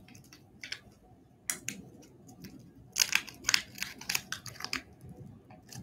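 Wax-paper wrapper of a 1954 Bowman baseball card pack crinkling and crackling as it is peeled open by hand, a few scattered crackles at first, then a dense run about three seconds in.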